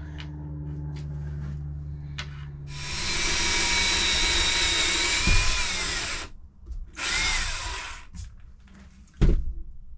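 Cordless drill boring into a wooden cabinet drawer front: a loud whine lasting about three seconds that dips slightly in pitch near its end, then a second, shorter burst about a second later. A sharp knock follows near the end.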